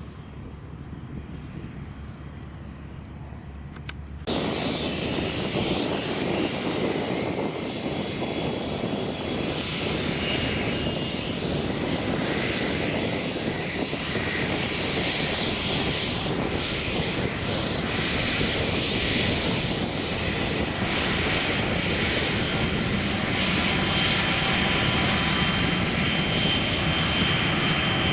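Airplane engine noise: a low rumble that jumps suddenly louder about four seconds in, then a steady loud engine noise with a thin high whine over it, growing slightly louder toward the end.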